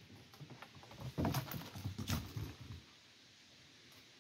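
Kittens' paws scampering and scuffling on wooden deck boards as they bat an acorn about: an irregular run of soft thumps and sharp taps that stops about three seconds in.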